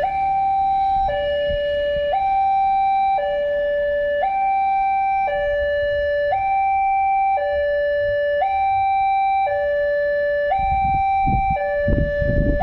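Railway level-crossing warning alarm sounding a two-tone electronic signal, a higher and a lower note alternating about once a second, as the crossing closes for an approaching train. A low rumble builds near the end.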